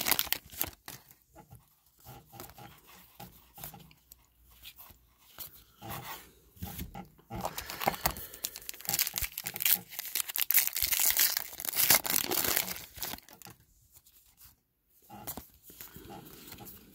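A foil trading-card pack torn open and its wrapper crinkled, in irregular bursts of crackling rustle that are loudest in the middle. Near the end come softer rustles as the cards are handled.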